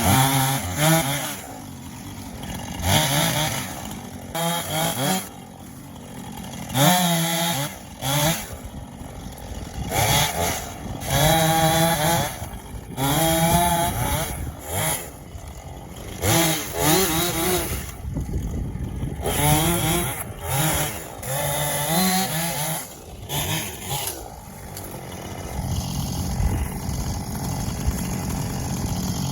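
Chainsaw cutting up fallen tree limbs: the engine revs up and drops back again and again, each burst a second or two long, and settles to a steadier, lower run near the end.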